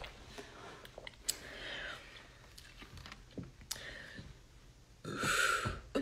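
A woman's quiet breathing with a few light clicks, then a short, sharp breath of air about five seconds in, as she gets ready to burp.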